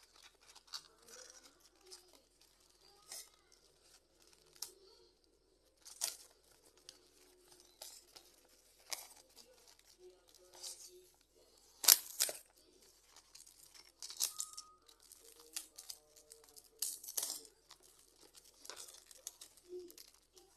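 Packing tape being peeled and pressed down on paper, with paper crinkling: irregular short ripping and crackling noises, the loudest one about twelve seconds in.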